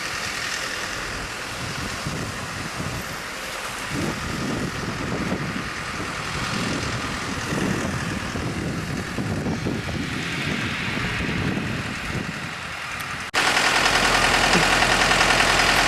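A golf cart on the move, its running noise and wind rumble on the microphone. About three seconds before the end it cuts abruptly to a louder, even hiss with a low hum.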